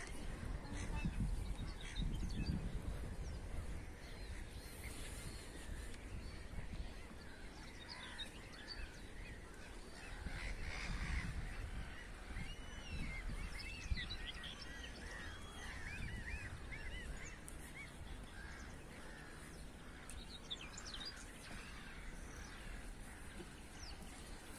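Many short bird calls, chirps and honks overlapping, busiest in the middle, over a steady low rumble.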